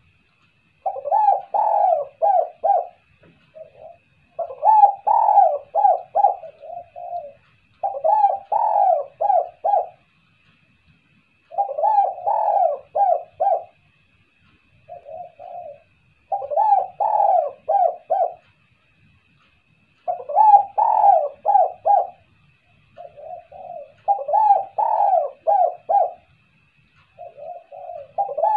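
Spotted dove (tekukur) cooing: a phrase of several quick low coos, repeated every three to four seconds, sometimes led by a shorter, softer phrase.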